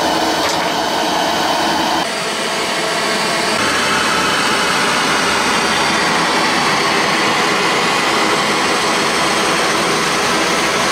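Glassworking torch flame burning with a steady hiss as a glass rod is melted to form a bead on a mandrel. The sound drops slightly and changes about two seconds in.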